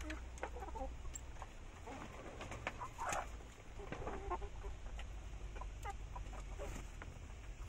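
A flock of twelve-week-old kienyeji chickens clucking as they peck at feed, with scattered short calls, the loudest about three seconds in.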